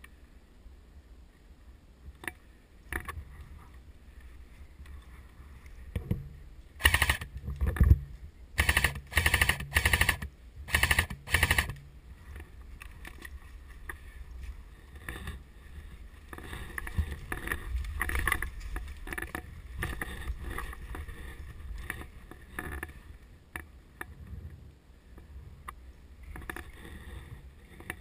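Airsoft guns firing in four short full-auto bursts of rapid, sharp cracks, about seven to twelve seconds in. Later comes a softer, uneven rustle of movement through dry brush and pine litter.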